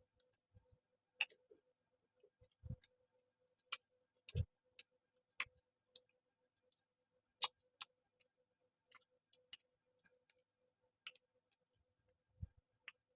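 Faint eating noises: sparse, irregular sharp clicks and smacks, roughly one a second, with a few soft low thumps, over a faint steady hum.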